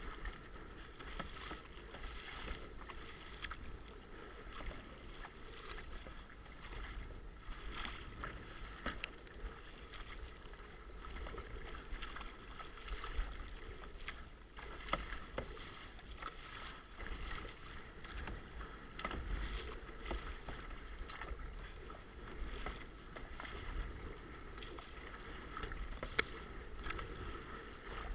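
Sit-on-top kayak being paddled through choppy water: paddle blades dipping and splashing at irregular strokes, and water slapping the hull, over a steady low rumble.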